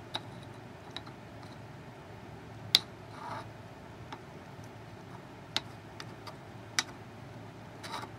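Scattered sharp clicks and taps, about seven in all and the loudest about three seconds in, as ceramic refrigerator magnets are handled against a small ferrite coil, over a steady low hum.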